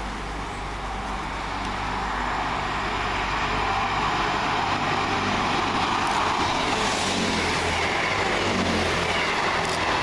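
Two coupled Class 158 diesel multiple units coming through the station: diesel engines running with a steady low drone and rising wheel and rail rush, growing louder over the first few seconds and then holding steady.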